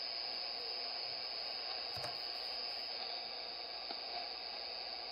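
Steady static hiss from a Radioberry software-defined radio receiver tuned to 75-metre SSB, with no station talking at the moment. A faint click comes about two seconds in.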